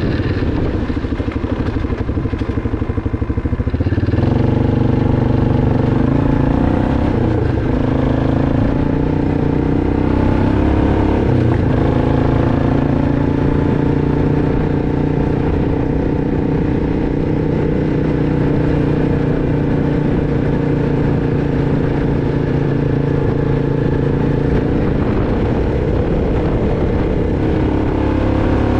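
2006 Arctic Cat 500 ATV's single-cylinder four-stroke engine running while riding. It picks up revs about four seconds in and then holds a fairly steady pace.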